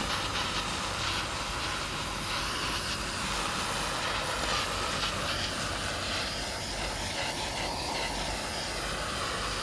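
Handheld propane torch burning with a steady hiss as its flame is played over a honey and brown-sugar glaze on a ham, caramelizing the sugar.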